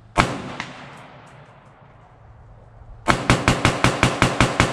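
A Bushmaster AR-15 semi-automatic rifle fires a single shot. About three seconds later comes a rapid string of shots, about six a second, that is still going at the end.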